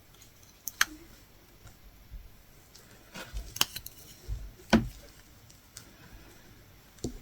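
A handful of sharp clicks and light taps at uneven intervals, the loudest a little under a second in and near the middle, from a metal latch hook being worked through the canvas, its latch snapping shut as yarn is pulled through.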